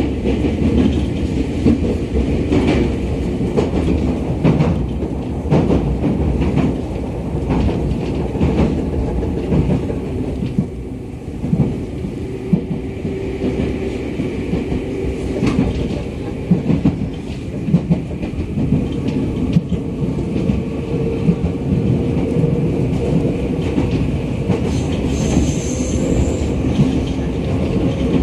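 Running sound of a JR 211 series electric train at speed, heard inside the carriage: a continuous rumble of wheels on rail with irregular clickety-clack from the rail joints and a steady hum underneath.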